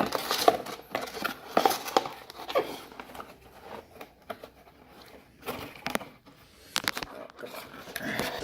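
Irregular handling noises: scattered clicks, knocks and rustling as objects are picked up and moved about on a desk.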